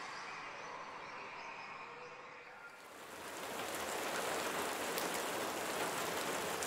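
Steady rain, quieter at first, swelling about three seconds in to a fuller hiss with a few sharper drop hits.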